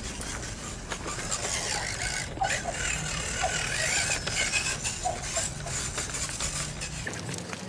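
A 1/10-scale RC rock crawler's small electric motor and geartrain whining and rattling in short, wavering bursts as it works over the course.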